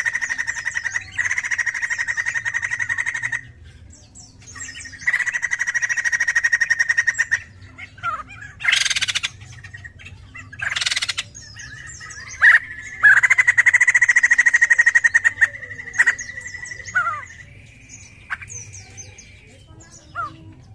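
White-crested laughingthrush (poksay jambul) singing: long, rapid rattling trills of two to three seconds each, broken by two short harsh screeching squawks about halfway through and a held whistled note near the end.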